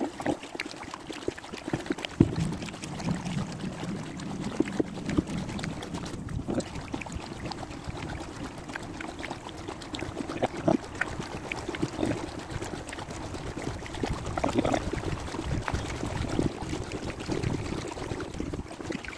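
Kayak paddle strokes through canal water: splashing and dripping off the blades, with scattered sharp clicks and knocks, the loudest about two seconds in.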